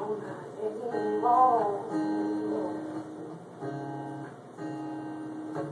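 Acoustic guitar strummed in chords, in short phrases with brief breaks between them. A single sung note, wavering in pitch, comes in about a second in.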